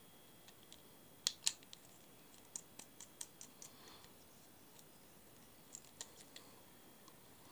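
Okuma Undertaker UR50 spinning reel clicking as it is handled: two sharp clicks about a second and a half in, then scattered lighter clicks and ticks.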